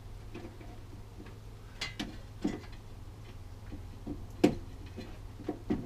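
A handful of short clicks and knocks as the buttons on a GT Sonic ultrasonic cleaner's control panel are pressed, the loudest knock about four and a half seconds in, over a steady low hum.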